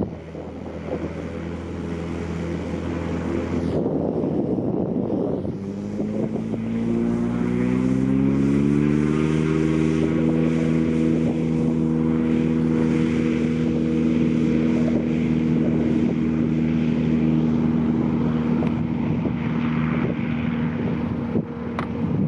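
Tow plane's piston engine and propeller running at a low steady pitch, then opening up about five seconds in: the pitch rises over a few seconds and holds steady at full power for the aerotow takeoff with a glider. Wind rumbles on the microphone throughout.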